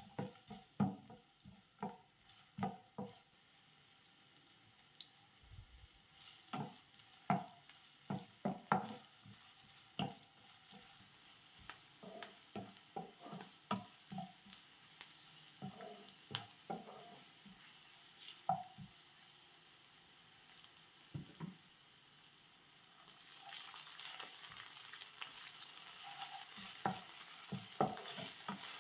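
Stirring and frying in a nonstick frying pan with oil: scattered sharp knocks and scrapes against the pan over a low sizzle. The sizzle grows louder about three-quarters of the way through.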